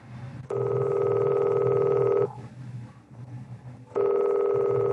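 A telephone ringing twice: each ring is a steady, fast-trilling electronic tone about two seconds long, with a pause of under two seconds between the rings. It is an incoming call not yet picked up.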